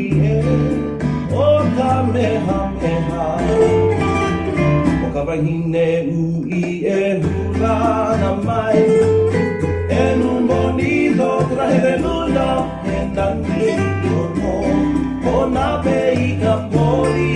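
Recorded Hawaiian song: acoustic guitar with a man singing over a steady bass.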